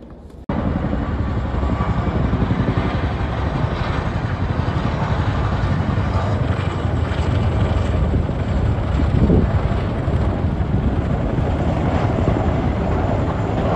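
Tandem-rotor helicopter, a CH-47 Chinook, flying low overhead, its rotors beating steadily. The sound starts abruptly about half a second in.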